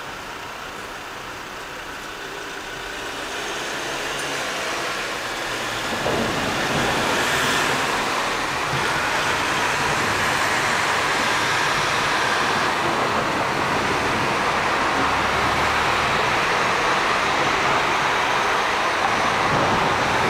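Thunderstorm rain and wind arriving: a steady rushing hiss that builds from about two seconds in, then jumps louder near six seconds and stays there.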